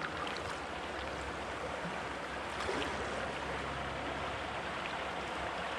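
Steady rush of flowing river water, running evenly with no breaks.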